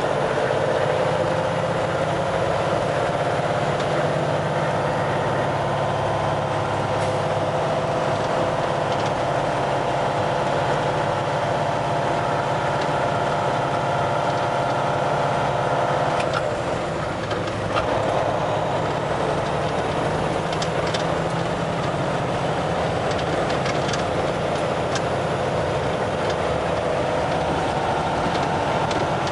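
Kenworth semi-truck engine running steadily under way, heard from inside the cab, with road noise from the tyres on gravel. About seventeen seconds in, the engine note briefly dips in level and pitch, then climbs back. A few sharp clicks are scattered through it.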